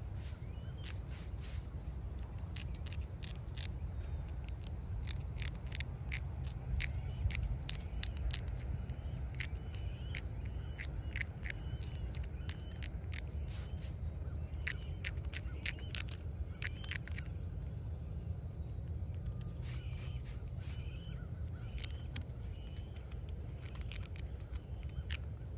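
Hand scrubbing of a small stone grave marker with a brush: irregular scraping ticks, busiest in the first two-thirds and sparser near the end, over a steady low rumble. Birds call now and then.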